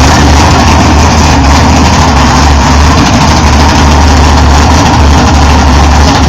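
1984 Camaro drag car's full-race small-block Chevy V8 running at low revs with its exhaust uncapped: a loud, steady, deep exhaust rumble.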